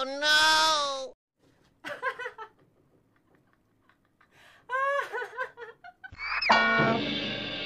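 A man laughing loudly and mockingly at the viewer, coming in separate bursts with gaps between them and a longer burst near the end.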